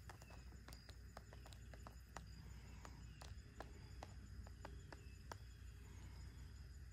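Quiet open-air ambience on a lake: a faint steady low rumble with scattered, irregular light clicks and ticks, and a faint high steady tone.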